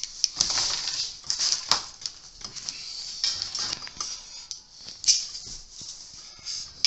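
Hands handling metal antenna parts, bolts and spacers: an irregular rustling with a few sharp clicks and taps.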